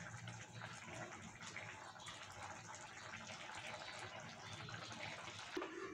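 Faint bubbling of a thin fish-curry gravy simmering in a kadhai on a gas burner, as pieces of fried fish are slipped into it.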